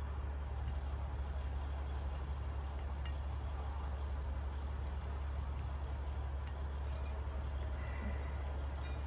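Steady low hum with a few faint, sharp metallic clinks as transmission parts are handled and fitted.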